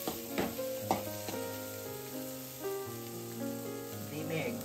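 Scrambled egg sizzling in a metal kadai, with a few sharp spatula scrapes against the pan in the first second or so. Background music with long held notes plays alongside.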